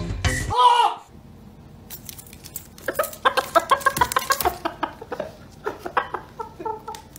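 White rooster clucking in a long run of short, quick calls, busiest in the middle. At the very start, background music ends and a brief loud rising-then-falling call is heard.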